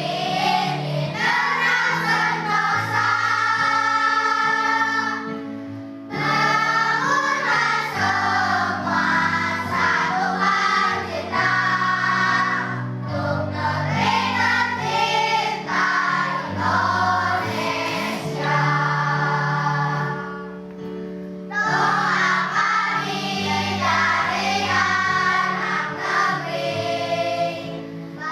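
A group of children singing in chorus over a held instrumental accompaniment, in long phrases with short breaks about six seconds in and again near twenty-one seconds.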